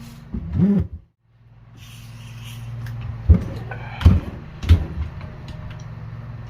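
Three sharp knocks, about half a second to a second apart in the second half, from a Mercury marine remote control box being handled on a workbench, over a steady low hum.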